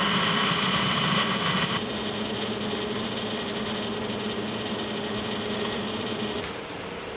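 Metal lathe turning a 1018 steel part. For about the first two seconds the cutting tool cuts an O-ring groove with a high ringing tone. After an abrupt change the lathe keeps running while a file rubs against the spinning work, smoothing the groove edges so they don't cut the O-ring.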